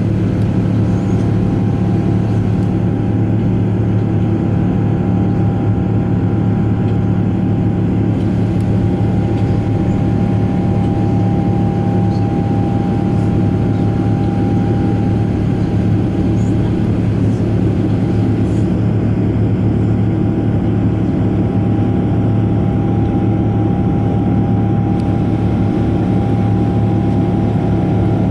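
Steady cabin noise of a Boeing 777-300ER climbing after takeoff: a loud, even drone of engines and airflow, with a faint steady whine over it.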